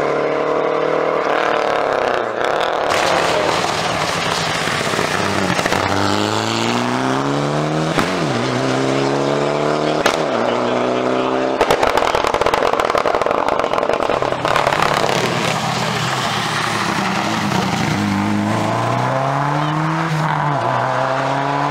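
Rally cars passing one after another on a wet asphalt stage, their engines revving hard up through the gears: each climbing note breaks off at a gearshift and starts again lower. Near the middle one car passes close in a loud, rough rush of noise.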